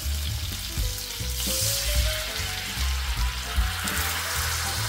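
Food sizzling in a hot frying pan, a steady hiss of oil, over background music with a steady bass line.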